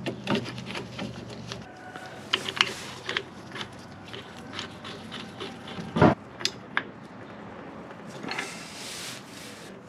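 Hand tools and metal parts being handled: scattered clicks, knocks and scrapes, with a heavier thud about six seconds in. A low hum cuts off about a second and a half in, and a short hiss comes near the end.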